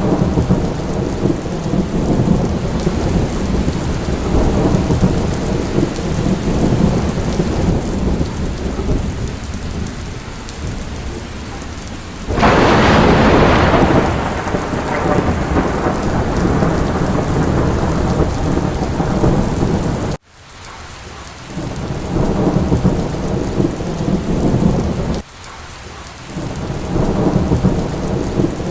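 Steady rain with a deep rolling rumble of thunder under it. A loud thunderclap breaks about twelve seconds in and fades over a few seconds. The sound cuts out abruptly for a moment about twenty seconds in and dips again near twenty-five seconds.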